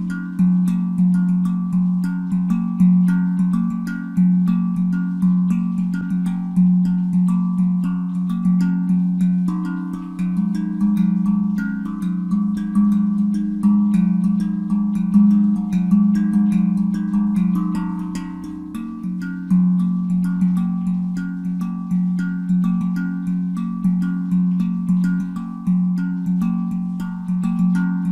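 Handpan tuned to F Phrygian at 432 Hz, struck by hand in a fast, even rhythmic pattern: a continuous stream of ringing metallic notes, the low notes loudest.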